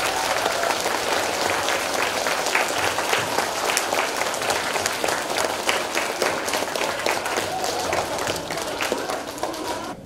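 Audience applauding at the end of a children's choir song, a dense patter of many hands clapping that dies away right at the end.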